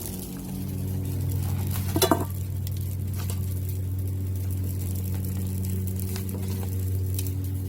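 Food sizzling on a Blackstone flat-top griddle as it is stirred, with a sharp metallic clang of a utensil against the griddle about two seconds in and a few lighter clicks after. A steady low hum runs underneath.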